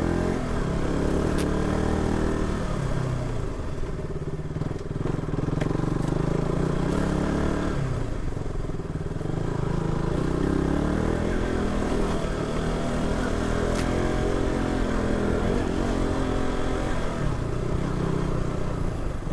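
Small single-cylinder motorcycle engine running under load on a rough off-road track, its pitch rising and falling again and again as the throttle is worked, with a few sharp clicks.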